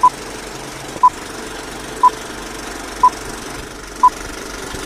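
Film-leader countdown beeps: a short high beep once a second, five in all, over a steady background hiss.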